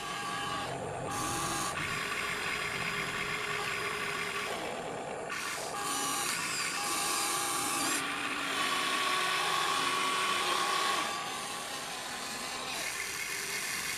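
Electric motors of a radio-controlled toy excavator whining as it swings its cab and works the boom, arm and bucket. The whine stops, starts and changes pitch with each new movement, about every few seconds.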